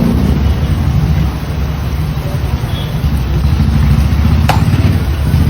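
Steady low rumbling noise of a busy street food stall, with one sharp clink about four and a half seconds in.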